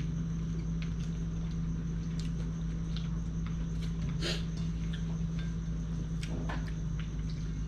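A steady low hum, with faint scattered clicks and taps of eating off ceramic dinner plates, the clearest about four seconds in.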